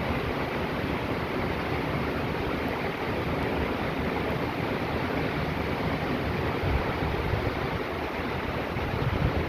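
Heavy rain pouring down steadily, a dense even hiss, with a few low gusts of wind on the microphone near the end.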